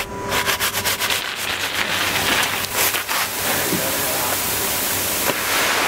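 10 mm gravel pouring from a bulk bag into a truck bed. At first separate stones rattle down. From about two seconds in it becomes a dense, steady rushing hiss as the full flow of stone lands on the growing pile.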